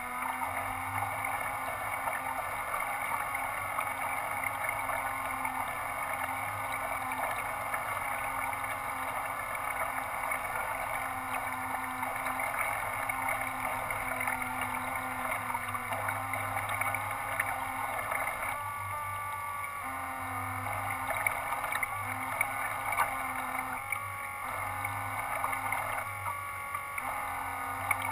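Radio-controlled model boat's propeller drive motors running with a steady whine and low hum, picked up by the camera on board. The tone shifts several times in the last third, as if the throttle is being changed.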